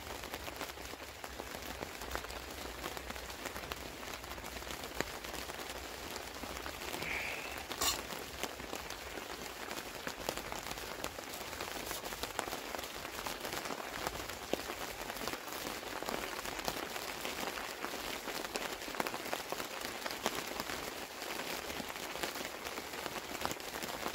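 Steady rain coming down, a constant hiss dense with small drop hits. One sharp click about eight seconds in stands out above it.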